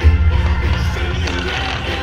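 Music with a strong low beat and sustained pitched notes, and a deep thump right at the start that is the loudest sound.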